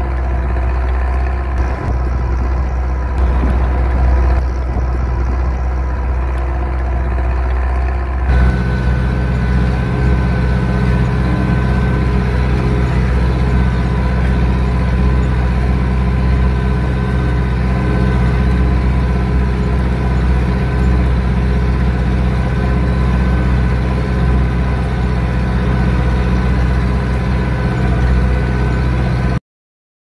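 Zetor 6211 tractor's diesel engine running steadily under load while pulling a plough through the soil. About eight seconds in the sound changes abruptly to a closer engine drone with a thin steady whine over it, and it cuts off just before the end.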